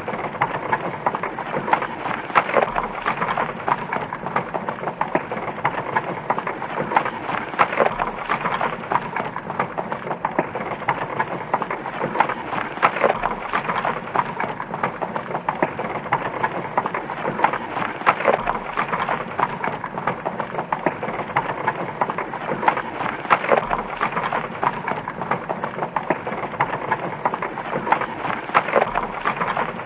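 Horse hooves clattering in a dense, steady patter of many small impacts, with a stronger beat about every five seconds, as if the same stretch repeats.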